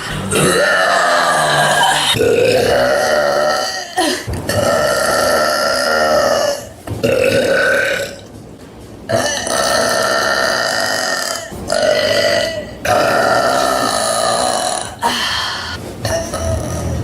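A woman's long, loud burps, one after another, each lasting one to two and a half seconds, with a short pause a little before halfway. The burps are brought up by fizzy soda.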